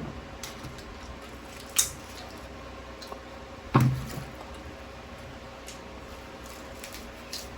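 Quiet mealtime eating sounds: cutlery and dishes handled at the table, with a sharp click a little under two seconds in and a short louder sound with a low pitch near four seconds.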